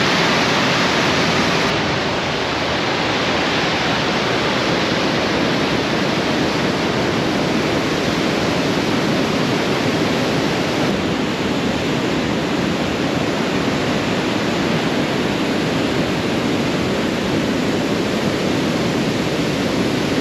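Steady rushing and splashing of a small waterfall pouring over rock ledges into a river, with no break.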